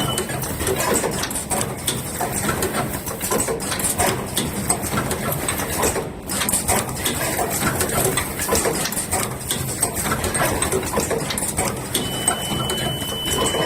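Automatic cable processing machine running, a dense clatter of rapid clicks and knocks from its working stations. About twelve seconds in, a steady high-pitched alarm tone starts: the line's error alarm.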